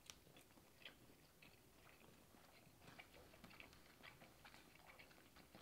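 Near silence with faint, scattered chewing and small mouth clicks of people eating sushi, a little busier in the second half.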